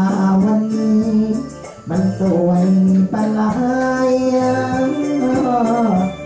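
Thai lae singing: one hoarse voice holds long, wavering, drawn-out notes over instrumental backing.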